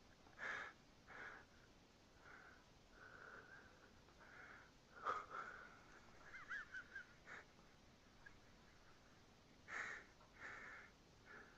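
Soft, short breathy puffs and sniffs close by, about ten of them scattered unevenly, the loudest about five seconds in and again near ten seconds.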